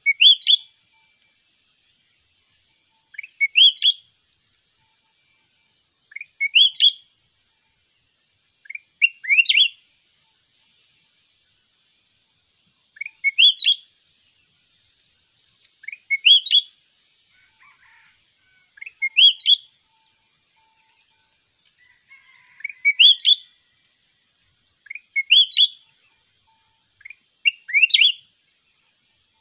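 Bulbul singing: a short, sweet phrase of two or three quick notes rising in pitch, repeated about every three seconds.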